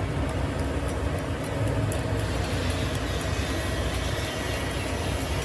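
Machinery running steadily, a low rumble and hum, with faint sharp ticks during the first couple of seconds.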